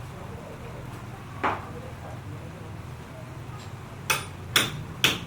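Hammering on a building site: a single knock, then from about four seconds in a regular run of sharp hammer blows, about two a second.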